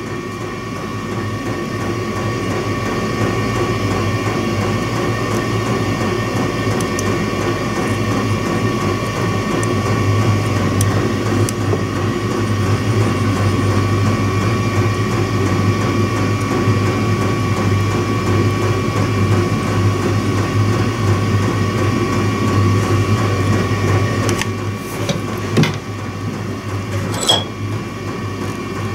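Steady whir and hum of a running motor or fan, with a thin steady whine over it. A few sharp clicks and knocks from handling come near the end.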